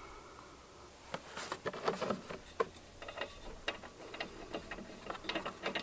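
Faint, irregular small clicks and ticks of a new spark plug being handled by hand, starting about a second in.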